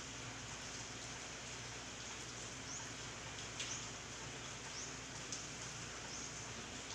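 Steady hiss of rain falling during a typhoon, with a couple of sharp drip taps and a few short, high rising chirps.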